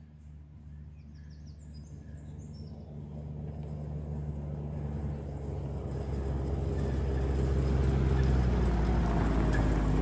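John Deere Gator utility vehicle approaching along a gravel track, its engine running steadily and growing louder as it nears.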